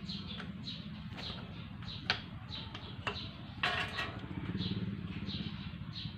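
An engine running steadily in the background, with a bird repeating short falling chirps over it. A sharp metallic click about two seconds in and a brief clatter near four seconds come from engine parts and tools being handled.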